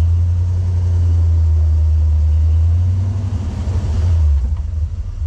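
Off-road vehicle's engine running with a heavy, steady low rumble, rising in pitch for a moment about three to four seconds in, then easing off.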